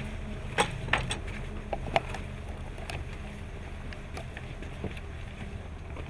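A low, steady hum like an idling vehicle, with a handful of sharp clicks and knocks in the first two seconds from officers' gear and footsteps as they move along the fence.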